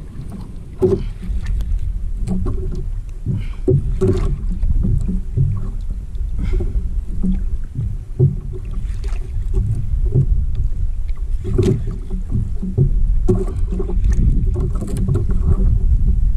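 Steady low rumble of wind and water around a small open fishing boat at sea, with irregular knocks and clicks scattered through it.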